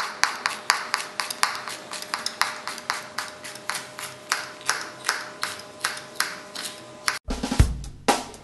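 Knife chopping on a cutting board in a quick even rhythm, about four strokes a second. Near the end it cuts off suddenly and a drum beat starts.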